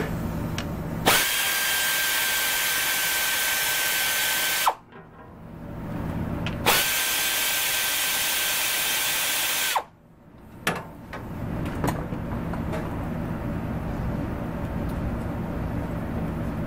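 Power tool spinning off the two 10 mm nuts holding a 150cc go-kart engine's intake manifold: two runs of a steady high whine, each about three seconds long, with a short pause between. A few light clicks follow.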